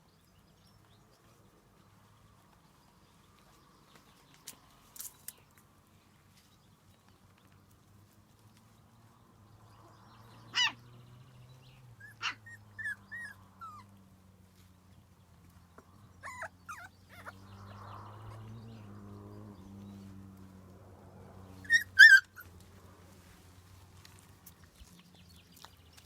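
Puppies playing, giving short high-pitched yelps and squeaks in scattered bursts over a faint low hum; the loudest pair comes near the end.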